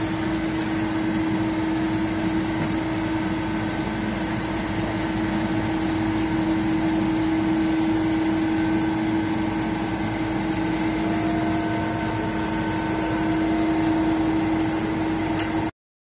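Steady hum of running refrigeration machinery: a constant low tone over an even whir, cutting off suddenly near the end.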